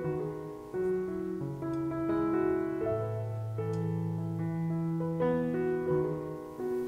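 Background piano music: a gentle melody of held notes over a slow bass line.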